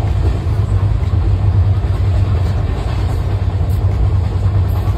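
Steady low rumble of a moving passenger train, heard from inside the coach.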